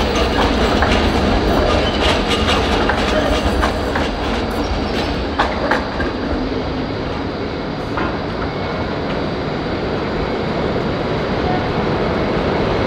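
E-class articulated tram rolling through a street-track junction, its wheels clicking and clattering over the crossings for the first five or so seconds, then rolling more smoothly, over a steady city traffic rumble.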